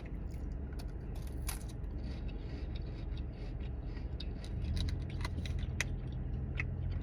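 Cracker being chewed: scattered short crunches over a steady low hum, which gets louder about four and a half seconds in.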